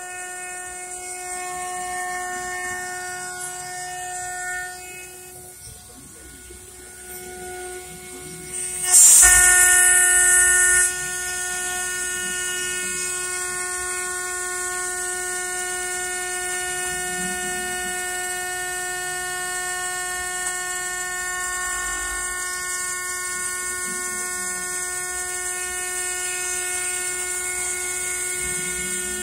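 A CNC mill's spindle and end mill are cutting a 3/4-inch-thick metal disk under coolant: a steady pitched whine with overtones. About nine seconds in, a loud burst of noise lasts about two seconds. After it the cutting runs on steadily, louder than at first.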